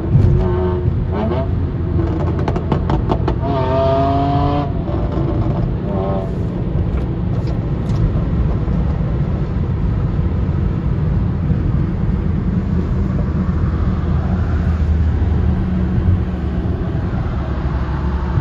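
BMW E39 528i's straight-six engine revving with a hard-cut pop-and-bang tune. In the first several seconds the pitch rises and falls and rapid crackles and pops come from the exhaust. After that it settles into a steady low rumble.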